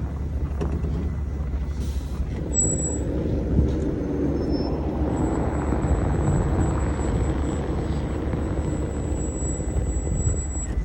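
Car driving slowly on a snow-covered road: a steady low rumble of engine and tyres, with a faint thin high whine over it.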